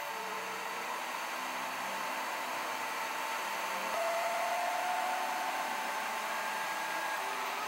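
Desktop 3D printer printing its first layer: a steady fan whir with the faint whine of the stepper motors, one tone rising slightly about four seconds in.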